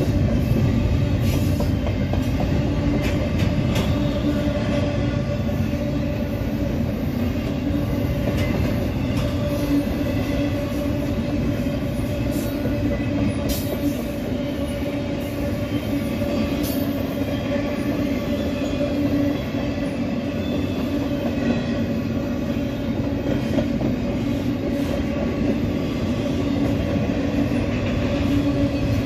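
Double-stack intermodal freight train's well cars rolling past at trackside: a continuous rumble of steel wheels on rail, with a faint steady squeal and a few sharp clicks from the wheels over the rail.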